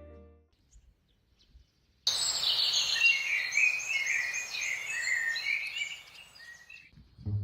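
Birds chirping: a busy run of short, high notes over a steady outdoor hiss, cutting in abruptly about two seconds in and stopping just before the end.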